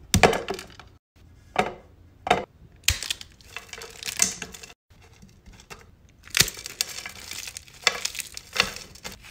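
Brittle, dried-out slime crackling and crunching as a hand squeezes and crushes it into flakes, in about eight separate bursts with short pauses between them.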